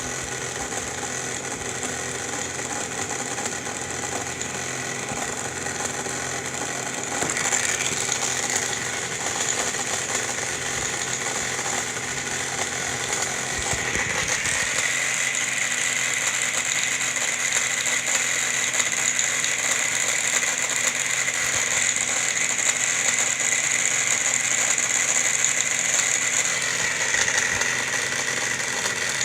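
Repaired air conditioner running steadily, its compressor and blower fan giving a continuous mechanical hum and rattle with a high whine. The whine shifts about 7 seconds in and again about 14 seconds in.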